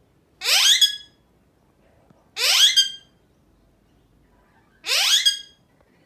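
Alexandrine parrot giving three loud squawks about two seconds apart, each one short and rising in pitch.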